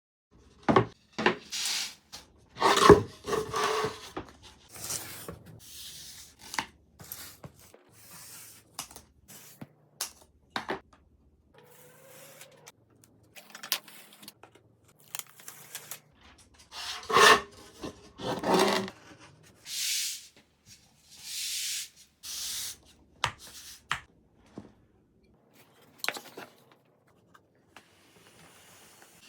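Wooden jig parts being handled on a workbench: irregular knocks, scrapes and rubbing, with a few longer rasping strokes about two-thirds of the way through.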